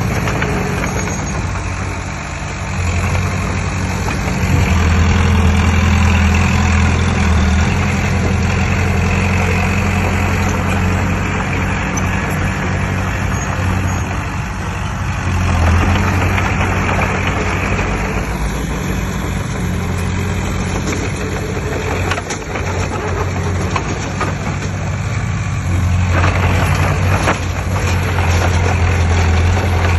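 Heavy diesel earthmoving machinery engine running steadily, swelling louder several times.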